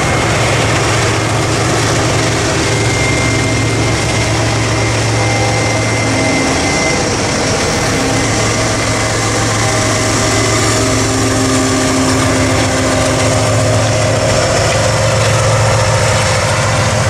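GE ES43BBi diesel-electric freight locomotives running past, their diesel engines giving a steady low drone with a few humming tones above it and the rumble of the train.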